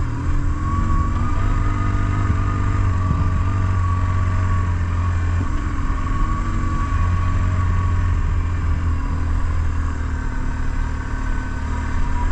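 BMW R1150GS Adventure's boxer-twin engine running at low road speed, heard from the rider's seat, its note steady with small rises and dips in pitch as the throttle changes.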